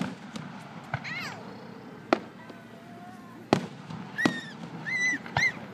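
Aerial fireworks shells bursting overhead: a series of sharp bangs a second or so apart, the loudest about two and three and a half seconds in.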